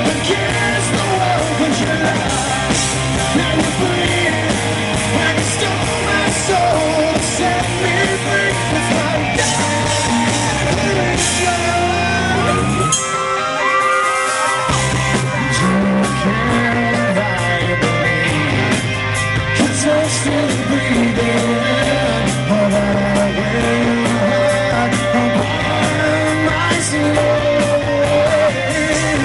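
Live rock band: a male lead singer singing over electric guitar, bass and drums. About halfway through, the bass and drums drop out for a second or two, then the full band comes back in.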